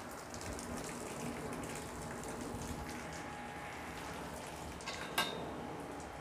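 Cow urinating onto a concrete barn floor: a steady splashing hiss, with a single sharp click about five seconds in.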